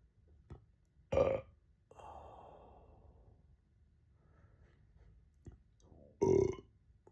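A person burping twice, two short loud burps about five seconds apart. A soft click comes just before each burp, and a breath out follows the first.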